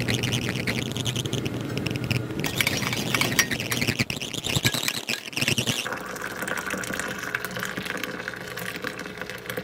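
Liquids being poured into a ceramic mug, ending with a steady stream of coffee pouring in.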